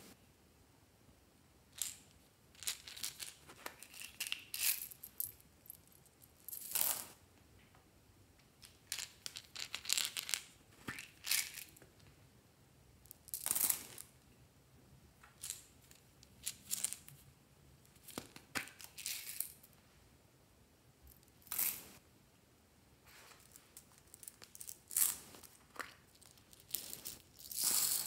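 Small plastic beads and buttons dropped by hand into a glass bowl, clicking and clattering in short runs every second or two.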